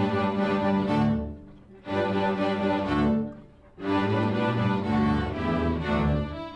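A school string orchestra playing, with cellos and basses under the violins. The music comes in three phrases broken by two short pauses.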